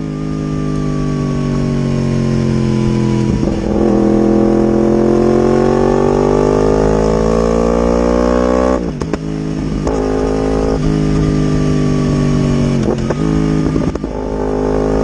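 Yamaha R1 inline-four sportbike engine running loud through its exhaust. Its pitch sinks slowly at first, then climbs for several seconds, and it is cut by short breaks a few times, like throttle changes or gear shifts.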